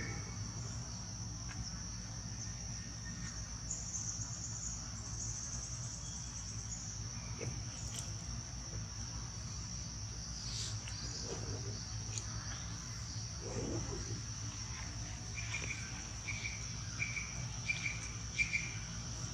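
Steady high-pitched drone of insects, with a low background rumble. Near the end, a run of about five short chirps repeats.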